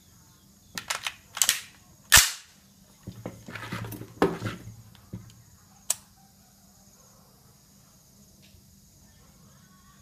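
Gunfire: several sharp reports in the first six seconds, the loudest about two seconds in, then quiet range background.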